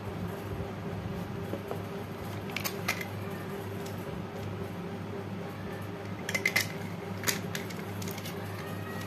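Hard plastic clicks and knocks from a handheld toy mini fan being handled as its water-spray tank is pulled off and refitted: a couple of clicks a few seconds in, then a quick cluster of louder clicks past the middle and one more shortly after. Under them runs a steady low electric hum.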